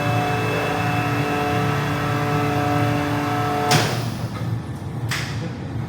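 Double-chamber vacuum sealer's vacuum pumps running with a steady hum. A little under four seconds in, the hum cuts off with a sudden sharp burst of noise, and a second, shorter burst follows about a second later.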